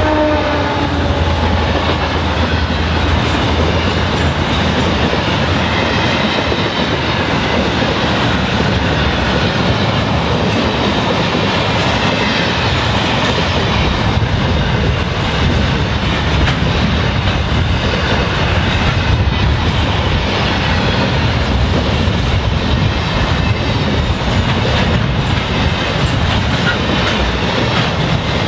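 Container wagons of a long intermodal freight train rolling past at speed: a steady, loud rumble and clatter of steel wheels on rail.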